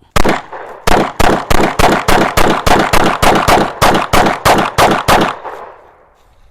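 A 9mm Glock 45 Gen 5 pistol fired rapidly, about fifteen shots at roughly three a second. The shots ring and echo after each report, and the string stops about five seconds in.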